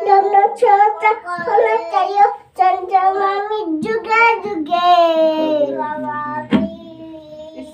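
A small child chanting a Sanskrit shloka in a sing-song voice, drawing out a long held note about five seconds in. A sharp click follows, then a quieter, lower held tone.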